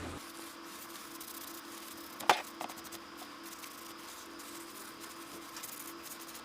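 Quiet handling of the pistol frame and cleaning tools on the bench: one sharp click about two seconds in and a fainter one just after, over a faint steady hum.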